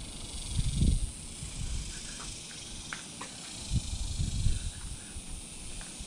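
Gusts of wind buffeting the microphone, swelling about a second in and again around four seconds, over a steady high-pitched hiss, with a couple of faint clicks near the middle.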